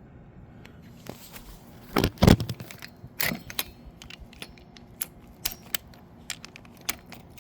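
Metal sockets and adapters clinking and knocking as they are handled and fitted together, with a louder clunk about two seconds in and another a second later.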